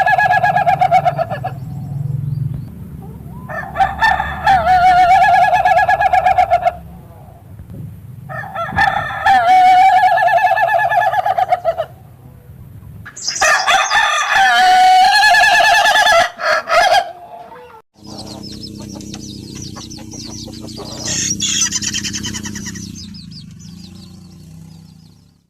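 Ayam ketawa (laughing chicken) rooster crowing four times, a couple of seconds apart. Each crow is long and broken into a fast stutter like laughter. After the last crow comes a quieter, hissing sound that fades out.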